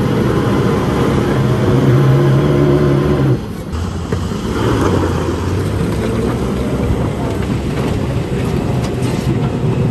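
Tata 2518 truck's diesel engine revving hard under load as the truck, rear wheels sunk in a mud pothole, strains to drive out. The pitch climbs slightly, drops back abruptly about three and a half seconds in, and the engine keeps running lower.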